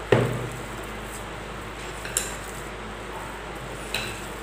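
A glass mixing bowl knocking and clinking against the table as biscuit dough is kneaded by hand in it: three sharp knocks, the first and loudest just after the start, then two lighter clinks about two seconds apart.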